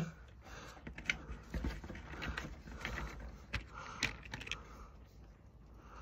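Faint handling noises: scattered small clicks and rustles of hands working electrical cable and clear plastic lever connectors.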